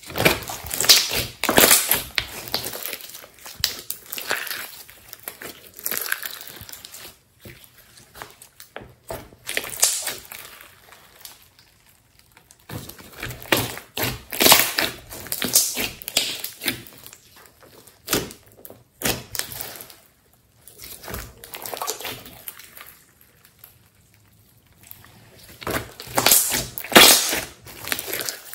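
Slime being kneaded and squeezed by hand: wet squishing with crackling, popping clicks in irregular bursts and short pauses between them.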